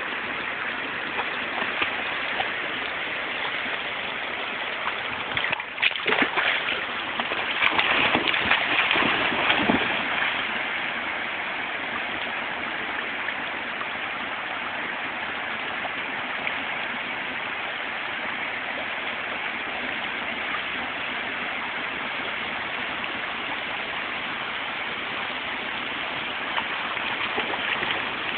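Steady rush of flowing river water, with a stretch of louder splashing about six to ten seconds in as the dog swims.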